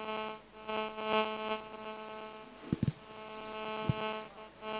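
Steady electronic buzz from a mobile phone on a speakerphone call, with short dropouts just after the start and near the end. A few sharp knocks of the phone being handled come a little past halfway.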